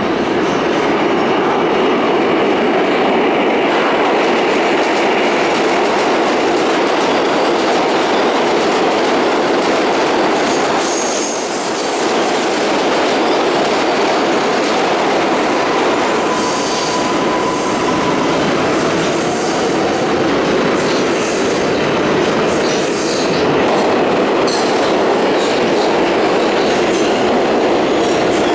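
NYC subway trains running through an underground station: a steady rolling rumble of steel wheels on rail with clatter and squeal, and a brief thin squeal about two-thirds in. Near the end an R142A train pulls in along the platform.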